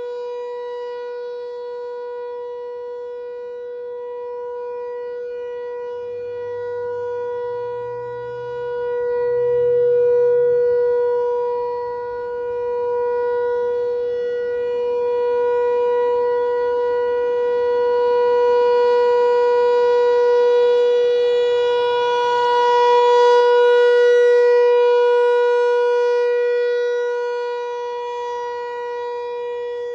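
ASC T-128 tornado siren sounding the Alert signal: one steady, unwavering tone with many overtones. It grows louder and fainter over several seconds as it sounds.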